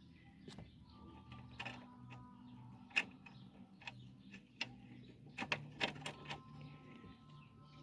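Faint, scattered metallic clicks and taps of washers and a nut being fitted by hand onto a bolt of a gearbox mount, with a quick cluster of clicks about two-thirds of the way in.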